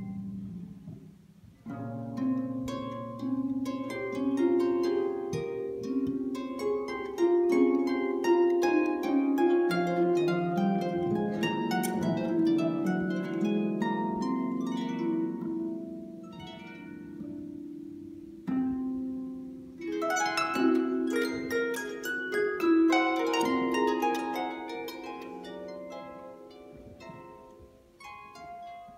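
Solo harp playing, plucked notes in quick runs and chords. The music nearly stops about a second and a half in and again past the midpoint, and grows softer toward the end.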